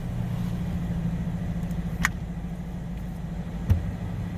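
Scion FR-S's 2.0-litre flat-four engine running steadily, heard from inside the cabin as a low hum. A short sharp click comes about two seconds in, and a brief thump, the loudest sound, comes near the end.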